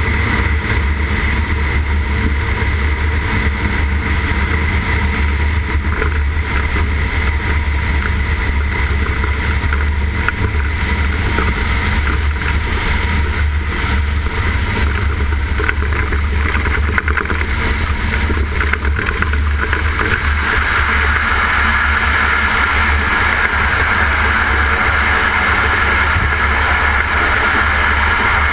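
Grumman Ag Cat biplane's engine and propeller running steadily on a landing approach, mixed with heavy wind rush over the boom-mounted camera. The sound grows brighter and slightly louder about two-thirds of the way through as the plane nears the runway.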